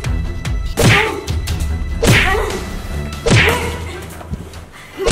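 An inflatable vinyl flip-flop whacking an inflatable cockroach, four hollow whacks a little over a second apart, each followed by a brief wobbling squeak.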